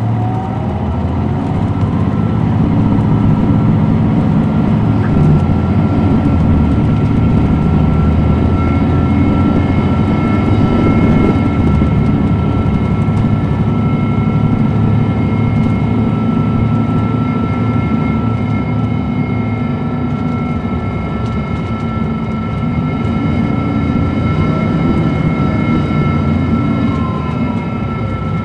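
Caterpillar C13 diesel engine of a 2007 MCI D4500CL coach, heard from inside the bus as it pulls hard at road speed: a loud, steady low drone with a constant high whine above it. The pitch rises in the first couple of seconds and again briefly near the end.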